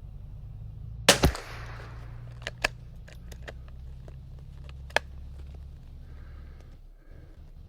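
A single .22LR rifle shot from a Kimber .22 about a second in, with a short echo tail. A few fainter sharp clicks or cracks follow over a steady low rumble.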